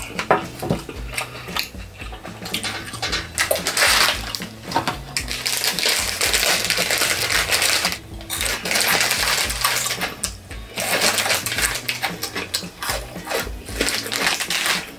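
Plastic snack wrapper crinkling in long stretches, with chewing, over background music.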